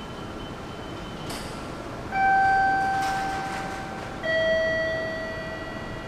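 Station public-address chime: two ringing notes stepping down in pitch, the second about two seconds after the first, each fading away, over steady background noise.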